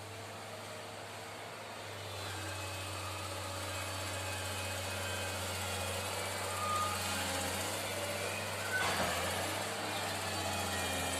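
Excavator's diesel engine running steadily, slowly growing louder, with a short sharp noise about nine seconds in.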